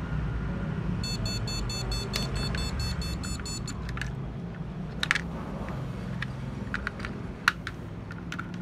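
Rapid electronic beeping, about five short high-pitched beeps a second for nearly three seconds, over a steady low hum. Scattered sharp clicks follow, the loudest a few seconds after the beeping stops.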